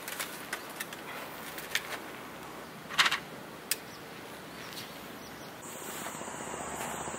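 Outdoor field ambience with faint birds and insects, over scattered clicks and knocks as a beach parasol is handled and set up. One sharp, loud click comes about three seconds in. Near the end the background changes to a steady high tone.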